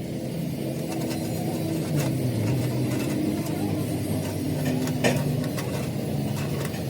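A machine running steadily with a low, slightly wavering hum, with a sharp knock about five seconds in.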